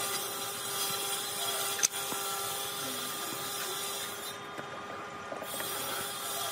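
A steady mechanical hum with hiss, with one sharp knock about two seconds in.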